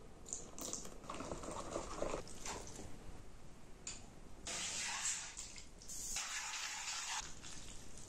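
Wet sounds of chili sauce being mixed: liquid poured into the sauce and wooden chopsticks stirring it in a glass bowl, then the sauce poured over noodles in a frying pan and stirred through. It comes in several short, separate bursts.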